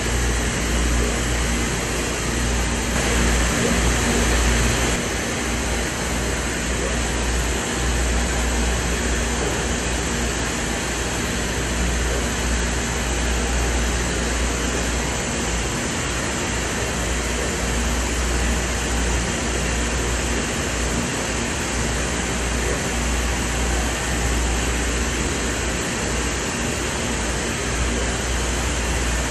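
UV flatbed printer running: a steady mechanical whir of fans and motors over a low hum.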